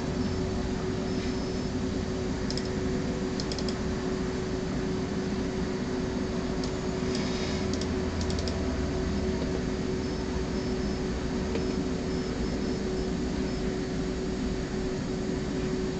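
Steady mechanical hum and hiss, like a fan or air conditioner, with a few small clicks and taps about three seconds in and again around seven to eight seconds in.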